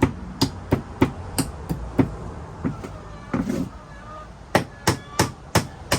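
Hammer blows on wood, a steady run of sharp strikes about three a second, knocking the nailed-on treads off a wooden chicken-coop ladder. The blows pause for about two seconds midway, then start again.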